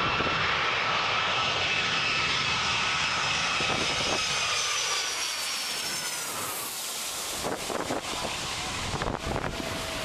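Jet airliner's turbofan engines passing low overhead on approach, a steady loud rush with a whine that slowly falls in pitch as it goes by. A few low thumps near the end.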